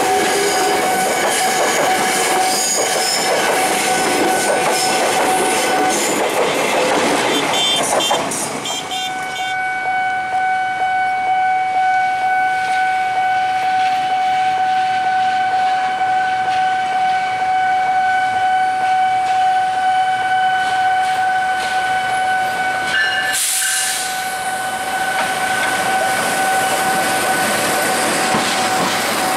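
Trains passing close by. First an electric commuter train rolls past. Then, about 8 s in, a CC 206 diesel locomotive hauls a freight train past, with a steady high-pitched tone held over the rumble.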